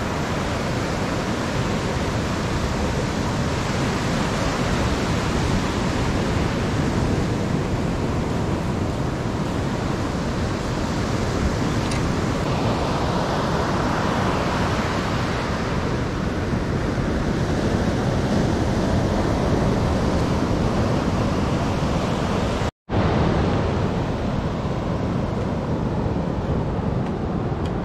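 Surf breaking and washing up a sandy beach, a steady rush with wind on the microphone. Near the end the sound drops out for an instant.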